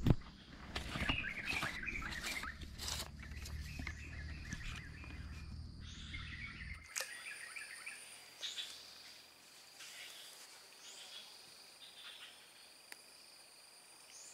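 Birds chirping over a thin, steady, high insect drone in swampy outdoor ambience. For about the first seven seconds a low rumble and a few sharp knocks sit underneath, then stop abruptly.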